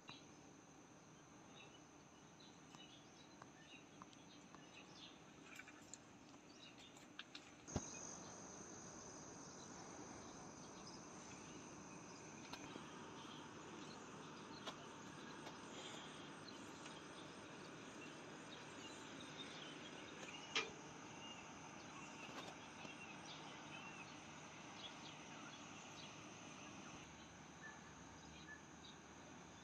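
Near silence: faint, steady chirping of insects, with a soft click about eight seconds in and another about twenty seconds in.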